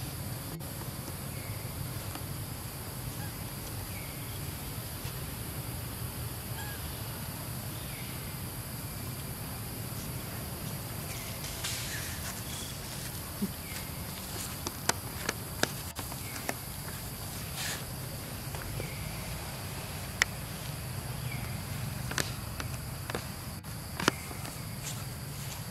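Outdoor ambience of steady insect buzzing, with a low hum underneath and faint short chirps every couple of seconds. From about halfway through, scattered sharp clicks and snaps come in.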